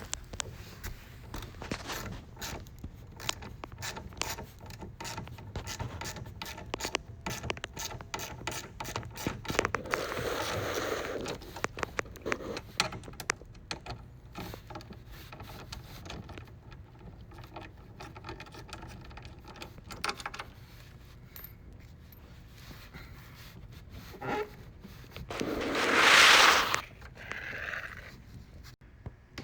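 Hand tool working the small bolts that hold the mud flap to a car's rear bumper: a long run of quick small clicks, with a louder scraping rush near the end.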